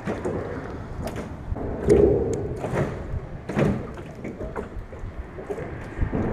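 A few knocks and thuds against an aluminum jon boat's hull, the loudest about two seconds in, over a steady low rumble.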